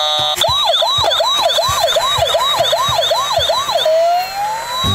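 Electronic siren of a battery-powered toy fire rescue van: a fast repeating yelp, rising and falling about three times a second. Near the end it switches to a slow rising wail.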